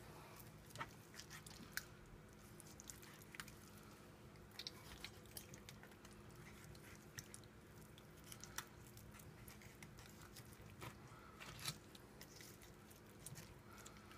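Faint wet crackling and scattered small clicks of a dull kitchen knife cutting raw chicken breast meat away from the rib bones, over a low steady hum.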